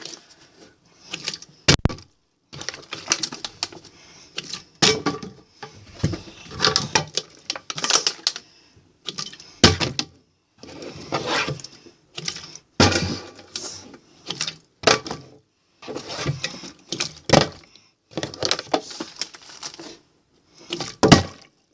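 A pocket knife being handled and flipped: repeated clicking, clattering and knocking every second or two.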